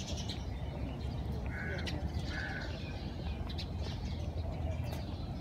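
Crows cawing: two short caws a little under a second apart, over a low steady rumble and a few light clicks.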